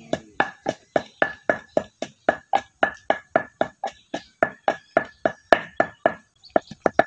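Wooden pestle pounding steadily in a mortar, about four ringing knocks a second, with a brief pause about six seconds in.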